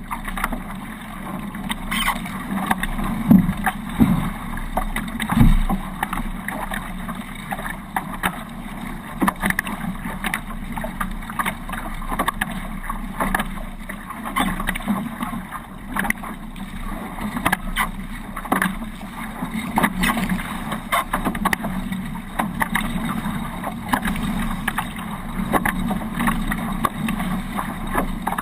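Hobie 18 catamaran under sail: water rushing past the hulls and wind buffeting the microphone, with frequent short, sharp knocks and splashes throughout.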